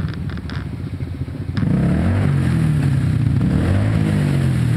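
Off-road vehicle engine revving, rising and falling in pitch, louder from about a second and a half in. A few sharp clicks near the start.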